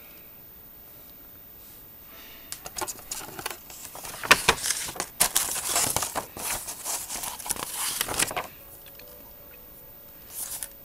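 Pages of a paper model-kit instruction booklet being handled and turned over: a run of crinkling and rustling that starts a couple of seconds in and stops about eight seconds in, with a brief rustle again near the end.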